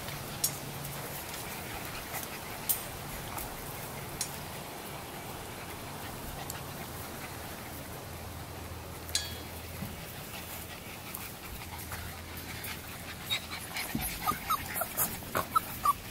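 Boxer puppies moving about and panting, with a few sharp clicks. Near the end comes a quick run of short, high puppy whimpers.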